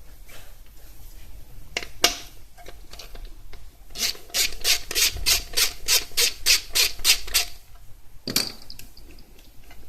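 Ratchet wrench with a 10mm socket worked back and forth in quick strokes, about four a second for three seconds or so, with a few tool knocks before and after.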